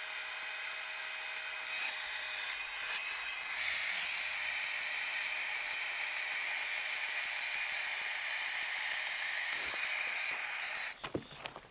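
Small rechargeable electric air pump running steadily with a high-pitched whir as it inflates a sleeping mat. It gets slightly louder about three and a half seconds in and stops near the end.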